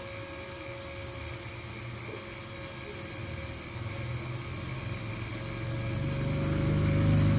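Steady low mechanical hum with a faint constant whine, growing louder over the last few seconds.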